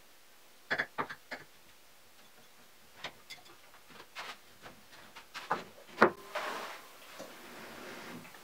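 Scattered clicks and knocks of wooden pieces and tools being handled on a workbench, with one sharp, loud knock about six seconds in, followed by a soft hiss lasting a couple of seconds.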